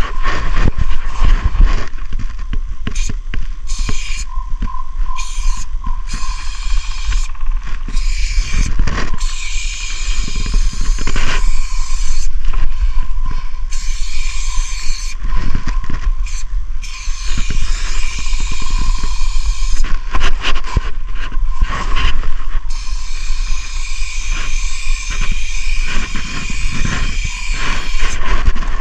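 Aerosol spray paint can hissing in repeated bursts of one to a few seconds with short breaks, as paint is sprayed onto a concrete wall, over a steady low rumble.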